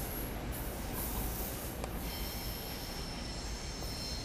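Steel wheels of a SEPTA Regional Rail electric train squealing on the rails over a steady low rumble of the passing cars. A very high-pitched squeal in the first couple of seconds gives way to a lower, steadier squeal about two seconds in.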